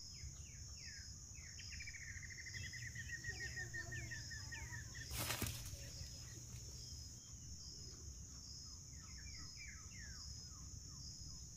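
Birds chirping outdoors over a steady high drone of insects, with a rapid run of repeated notes about two seconds in. Just past five seconds in, a brief sharp swish as the rope snare is sprung.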